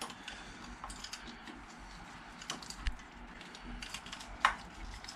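Small plastic clicks and rattles of motorcycle wiring connectors and clips being worked apart by hand, irregular, with one sharp click near the end.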